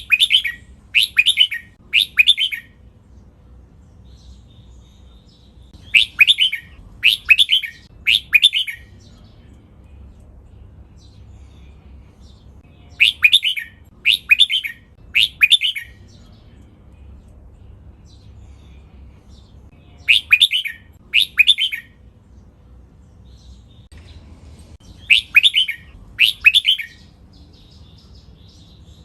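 Red-whiskered bulbul singing: five short loud phrases, most of three quick bright notes, repeated about every six seconds with pauses between them.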